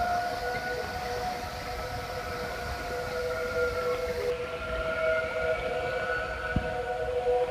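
A steady chord of held, siren-like tones that stays on one pitch without rising or falling, over a faint low rumble.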